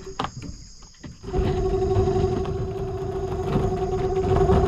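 Small engine running at a steady pitch, coming in about a second in and holding steady.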